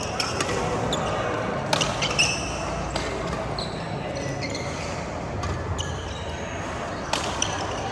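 Badminton rally: sharp racket-on-shuttlecock hits at irregular intervals, with short high squeaks of shoes on the court floor and voices murmuring underneath.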